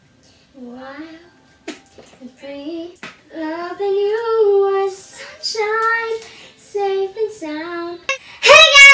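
A young girl singing alone without accompaniment, holding long notes, loudest near the end.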